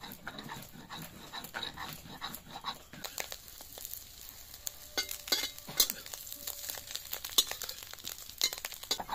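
A grinding stone rubbed back and forth over ginger and cumin on a stone slab, rhythmic scraping strokes about two a second. About three seconds in this gives way to a metal spatula scraping and clicking against an iron kadai as fish roe cakes fry, with oil sizzling.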